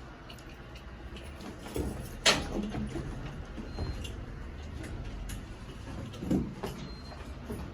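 Otis Skyrise traction elevator car in motion: a steady low rumble with scattered clicks and knocks, and one sharp knock a little over two seconds in.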